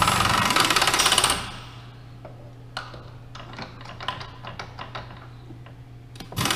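Bridgeport Rapid 8 air-powered impact drawbar running in a loud rapid rattling burst for about a second and a half, driving the drawbar that frees or tightens the R8 collet in the spindle. Light metallic clicks and knocks follow as the tooling is handled, and a second rattling burst starts near the end.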